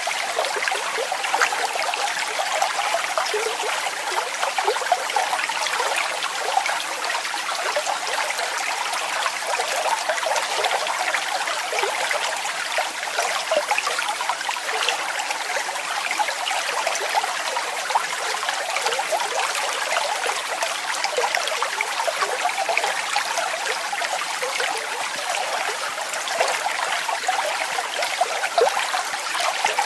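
Waterfall: water falling and splashing steadily, an even rush of spatter and trickles without a pause.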